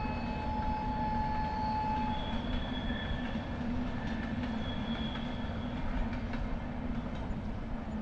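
A train running along the railway track: a steady rumble of wheels on rails, with a few thin, steady squealing tones over it, one of them fading out about two seconds in.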